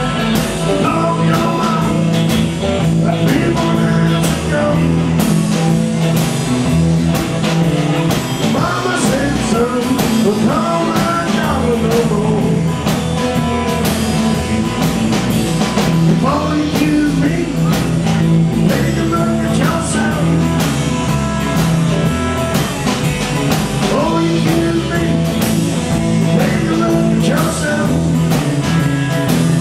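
A live rock band playing: electric guitars and a drum kit, with a man singing into a microphone. The music runs steadily and loudly, with a regular drum beat.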